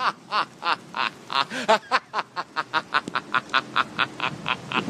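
A man laughing hard: a long unbroken run of short, pitched 'ha' bursts, about five a second.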